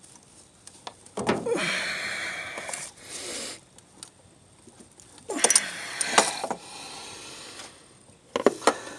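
Pliers and gloved hands working rubber coolant hoses loose on a throttle body's fittings: two long stretches of rubbing and scraping, with a few sharp metal clicks near the end.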